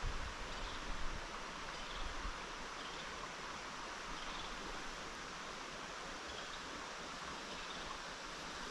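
Steady rush of a shallow, rocky trout stream flowing past, with a few soft low bumps in the first couple of seconds.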